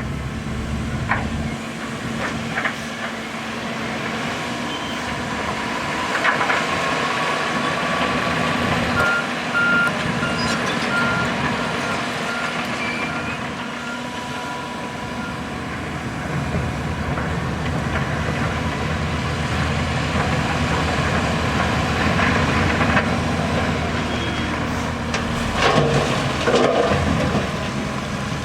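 Diesel engines of heavy earthmoving machinery running steadily under load, with a reversing alarm beeping for several seconds around the middle.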